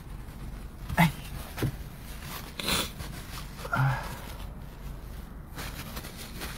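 Wind from a snowstorm blowing across a handheld microphone as a steady rushing noise. A few brief scrapes and clicks of handling cut through it, the loudest a short rasp about two and a half seconds in.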